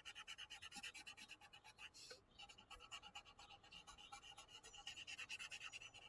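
Black marker scribbling rapidly back and forth on paper, colouring in a solid area: a faint, quick run of short scratchy strokes, several a second, with a brief pause about two seconds in.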